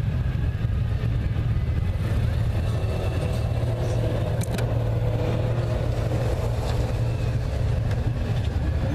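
A line of Honda Gold Wing trike motorcycles rolling past slowly, their engines running steadily with a low, even drone.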